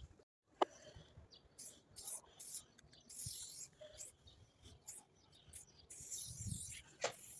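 Aerosol spray-paint can hissing in several short bursts, with a sharp click just over half a second in.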